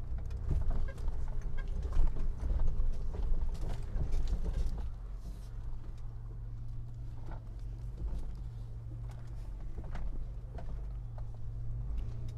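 Mitsubishi Montero V43 crawling over rough cross-axle off-road ground, its engine running steadily at low speed under scattered irregular knocks and clicks, thickest in the first half. The chassis makes no clunks or rattles: the suspension is sound.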